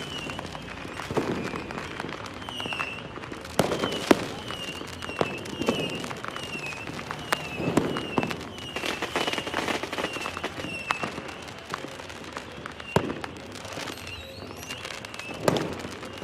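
Fireworks going off: sharp bangs and pops at irregular intervals, the loudest about four seconds in. Under them, a short falling high chirp repeats about twice a second.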